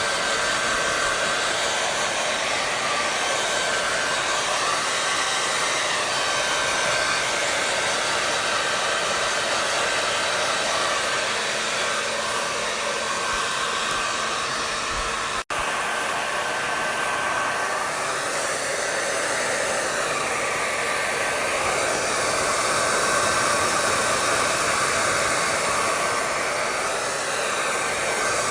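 Hair dryer blowing steadily: an even rush of air with a faint steady whine from the motor, broken by a momentary dropout about halfway through.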